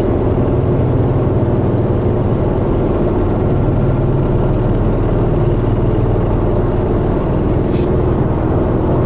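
Steady engine and road noise inside a moving car's cabin, with a low hum. A brief high-pitched crackle near the end.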